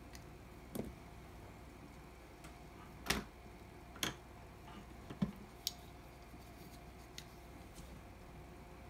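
Irregular sharp clicks and taps of small hand tools and electronic components being handled at a workbench during kit assembly, about six in all, the loudest about three and five seconds in, over a faint steady hum.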